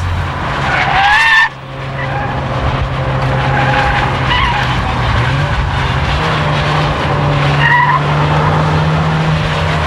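Nissan Pulsar GTI-R's turbocharged SR20DET engine pulling hard through bends, its pitch rising about halfway through, with short tyre squeals about a second in, around four seconds in and near eight seconds in. The first squeal rises in pitch and cuts off suddenly.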